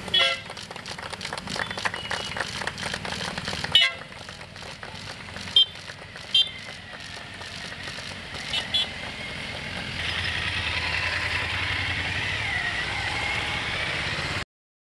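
Motorcycle convoy riding past, with several short horn toots over the running engines while spectators clap. The sound cuts off abruptly near the end.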